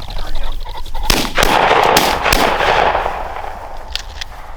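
Shotgun shots: sharp cracks about a second in and twice more around two seconds, over a rushing noise that lasts about two seconds, with two fainter cracks near the end.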